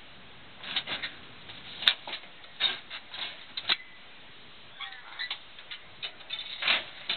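Irregular knocks and scrapes of a sheet-metal car body section being heaved and shoved onto a metal box trailer, with a sharp click about two seconds in and a denser run of knocks near the end.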